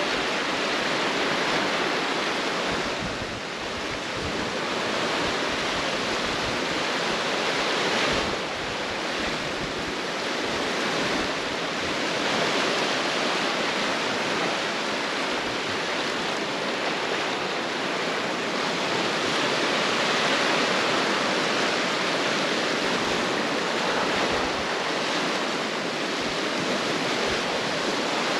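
Lake waves washing onto the shore in a steady wash of noise that swells and eases, with wind blowing across the microphone.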